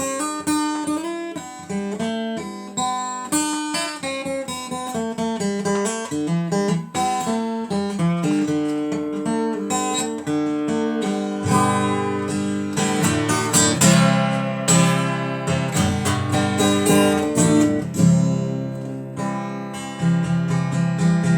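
Acoustic guitar playing an instrumental passage of picked and strummed chords; the low notes grow fuller about halfway through.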